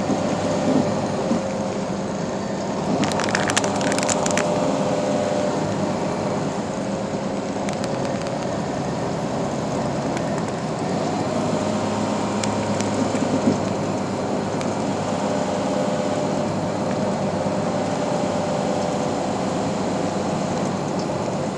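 Steady road and engine noise inside the cabin of a vehicle cruising on a highway, with a faint steady hum. About three seconds in there is a brief cluster of sharp crackling clicks, and a few single clicks later on.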